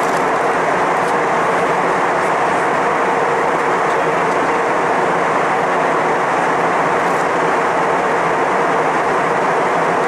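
Steady cabin noise inside a jet airliner at cruise: the even rush of engines and airflow past the fuselage, unchanging in level.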